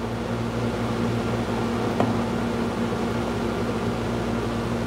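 Steady low hum with an even rush of air from a running electric fan unit, with a faint click about two seconds in.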